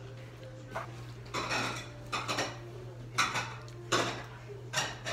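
Metal chopsticks and spoon clinking and scraping against a stainless steel rice bowl and dishes: a run of short clinks, several in quick succession.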